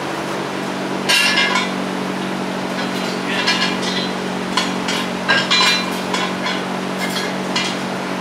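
Metal tools and parts clinking and tapping in short, irregular bursts, about eight over the stretch, over a steady low hum.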